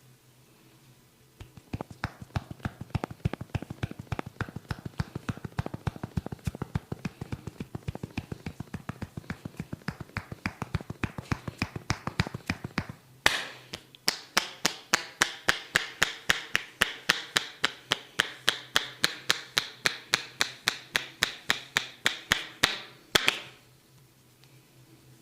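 A barber's hands tapping rapidly and rhythmically on a client's head in a percussive head massage, about five strikes a second. After one sharp slap about thirteen seconds in, the strikes become louder and sharper, and they stop abruptly near the end.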